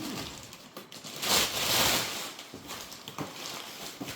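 A cardboard shipping box being unpacked: packaging rustling and scraping in uneven bursts, loudest for about a second starting a little over a second in.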